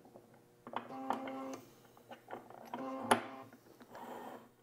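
Auto Trickler V3 powder dispenser motor running in two short whirring spells as its auto-throw drops rifle powder into the scale cup. A softer run follows near the end as it keeps dispensing toward the set charge, with a few light clicks in between.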